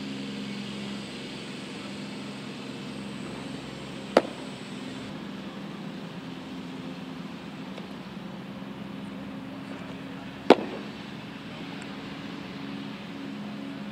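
A baseball smacks into a leather glove twice, about six seconds apart, each time a single sharp pop. A steady low hum runs underneath.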